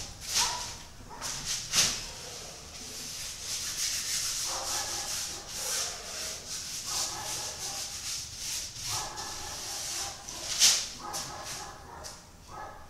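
A paintbrush scrubbing paint onto a large canvas, a rasping hiss with a few sharp strokes, the loudest near the end.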